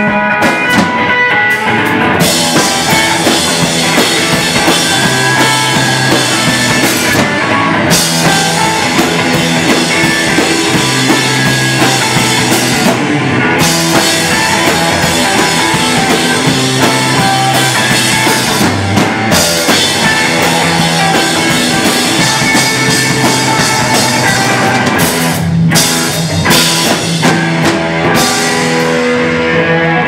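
Live rock band playing loud: electric guitar over a drum kit with cymbals and a low bass line. The drums break off briefly several times, and the cymbals fade out near the end, leaving the guitar ringing on.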